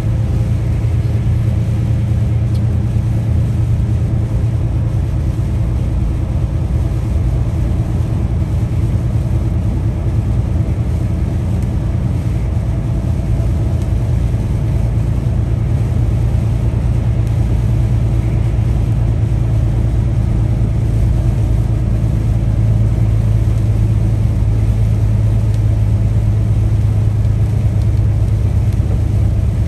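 Peterbilt 579 semi truck's diesel engine droning steadily at cruise, with tyre and road noise, growing a little louder about two-thirds of the way through.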